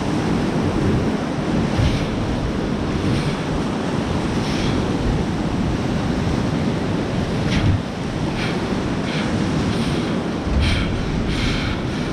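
Whitewater rapids rushing steadily around a loaded river sweep boat, with short splashes now and then and wind buffeting the microphone.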